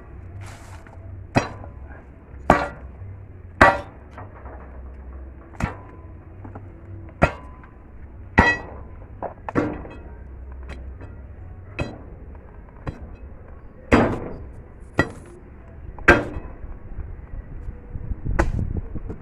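Repeated hard, ringing metal strikes on stone, about a dozen at an uneven pace of roughly one a second: stones being tamped down into the hole around a fence post to set it firm.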